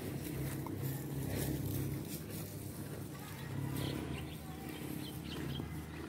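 Bali cow (banteng cattle) eating grass up close, its mouth tearing and chewing the stems in short crunches, over a low steady rumble.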